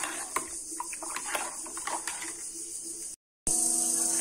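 A metal spoon stirring lemon sharbat in an aluminium pot, clinking against the pot several times, over a steady high chirring of insects. After a brief dropout near the end, the insect chirring carries on louder.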